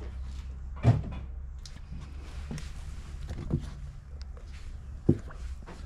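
A few dull knocks, the loudest about a second in and another near the end, over a low steady hum: handling noise as shoes are picked up and moved.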